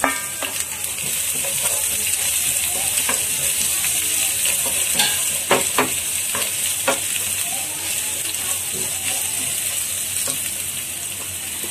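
Garlic, ginger, dried red chillies, chana dal and curry leaves sizzling in hot oil in a nonstick pan as a tempering (tadka), stirred with a wooden spatula. A few clicks of the spatula against the pan come about halfway through.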